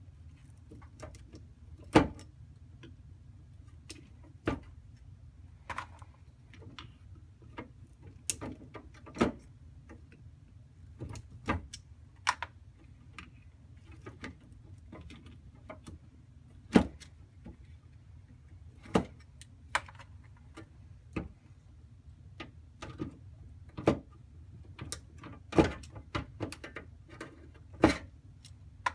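Irregular sharp clicks and clacks of needle-nose pliers squeezing the latches on the wire connectors and pulling them off small 12 V battery terminals, with the occasional knock of a freed wire set down on the wooden bench.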